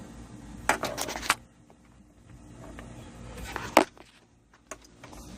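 Handling noise of a video cable being worked free of a wire clothes hanger: rustling and scraping about a second in, a sharp click a little before four seconds, and a few small ticks near the end.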